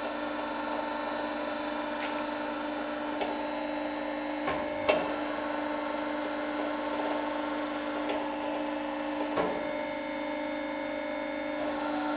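Davi MCA CNC plate bending roll machine running with a steady multi-tone hum. A few knocks break in, the loudest about five seconds in and another just after nine seconds.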